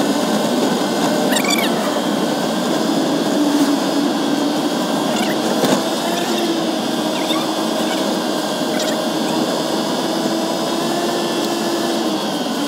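Steady drone of a vehicle's engine and tyres heard from inside the cabin while driving through a road tunnel, with a hum that drifts slightly in pitch and a few faint clicks.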